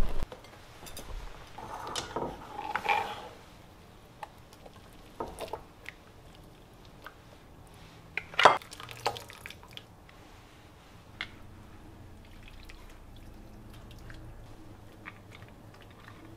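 Broth dripping and utensils clinking against a pot and dishes as noodles and crab shell pieces are lifted out and served, in scattered short clicks; one sharper knock about eight and a half seconds in is the loudest.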